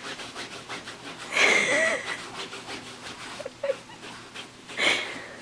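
Small dog pawing and scratching at a blanket, with sniffing and snorting as it burrows its nose in; a loud snort comes about a second and a half in and another near the end.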